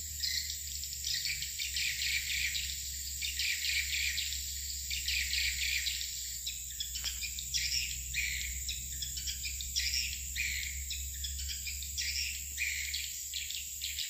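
Edible-nest swiftlets twittering: a dense, continuous run of short, quick chirps around a swiftlet house. A steady high insect-like whine runs beneath it.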